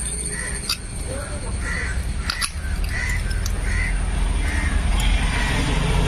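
Crows cawing again and again, a short call every half second to a second, over a steady low rumble that grows louder in the last couple of seconds. A couple of sharp clicks come about a second and two and a half seconds in.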